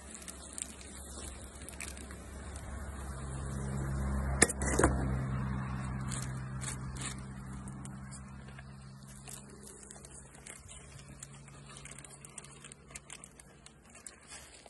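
A plastic bag crinkles and crackles as it is handled and squeezed over an open beehive. A low motor hum swells over the first few seconds, fades away by about ten seconds in, and has two sharp knocks at its loudest point, about four and a half seconds in.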